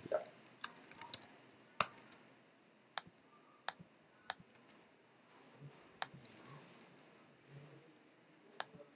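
Faint computer keyboard typing, a quick run of keystrokes in the first second or so, followed by scattered single clicks.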